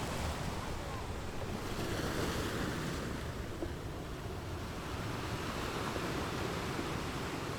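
Sea surf washing onto the shore in a steady rush, with wind.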